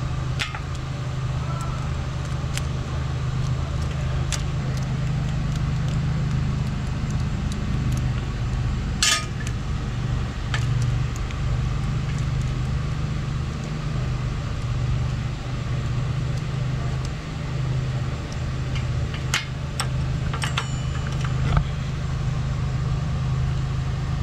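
Small metallic clicks and taps from an Allen key working the bolts of a bicycle disc-brake caliper. They come at scattered moments, with a short rattle about nine seconds in, over a steady low mechanical hum.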